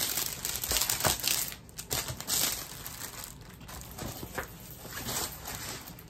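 Diamond painting kit packaging crinkling as it is handled, in irregular bursts that are busiest in the first couple of seconds and then thin out.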